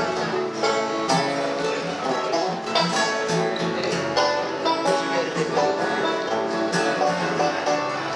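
Banjos and an acoustic guitar playing together in a live folk or bluegrass-style jam, with a steady picked and strummed rhythm.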